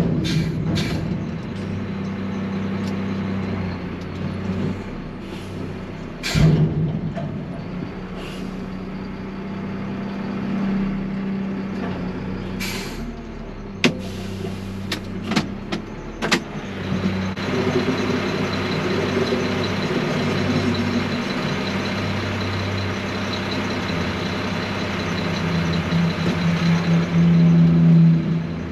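Front-loading garbage truck's diesel engine running steadily while the truck handles a metal dumpster, with loud clanks and bangs about six seconds in and a cluster of knocks around the middle. The engine then runs harder and grows louder toward the end as the truck moves off.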